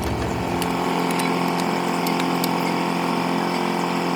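A motor running steadily at an even pitch, with a few faint ticks; the deepest part of the hum drops away about a second in.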